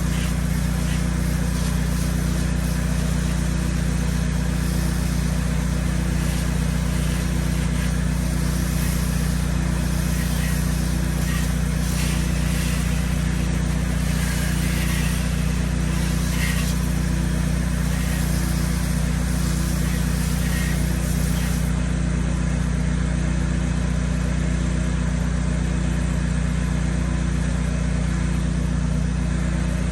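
Pressure washer's engine and pump running steadily under load, a constant low drone.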